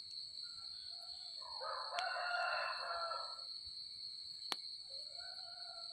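A rooster crows once, about two seconds long, starting a second and a half in, over a steady high chorus of night insects. Two sharp clicks come about two and four and a half seconds in.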